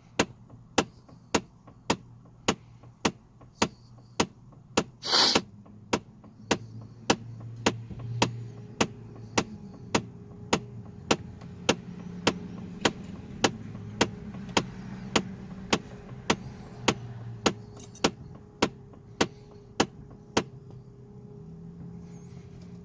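HVAC blend door actuator under the dashboard of a Chevrolet Trailblazer/GMC Envoy clicking steadily, a little under two sharp clicks a second, stopping near the end. The clicking is the sign of a failing blend door actuator, which also leaves the air blowing only from the windshield vents. A steady hum from the running ventilation builds up behind it.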